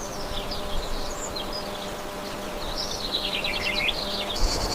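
Small birds chirping and twittering in varied, quickly rising and falling notes. Near the end an insect's rapid, evenly pulsed chirring starts.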